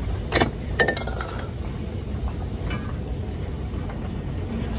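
Metal clinking as a bolt and washer are worked through the steel shank and fluke of a Spade anchor: a few sharp clinks in the first second and a half, one ringing briefly, over a steady low background hum.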